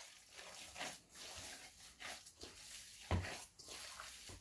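Gloved hand kneading minced pork chorizo mix in a stainless steel bowl: faint, irregular wet squelches, with a louder slap a little after three seconds in.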